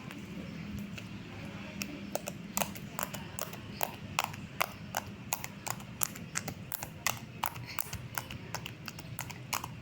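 Slime being squeezed and poked, giving sharp clicking pops, a few a second, coming more often from about two and a half seconds in.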